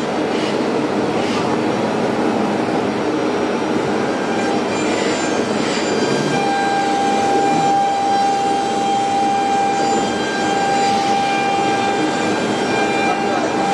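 Nesting CNC router running: a steady machine noise with a high whine made of several held tones, one of which drops out for a few seconds early on and returns.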